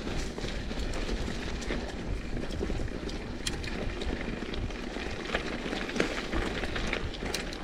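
Mountain bike riding down a dirt singletrack: steady tyre rolling noise over a low rumble, with frequent small clicks and rattles from the bike going over the rough trail.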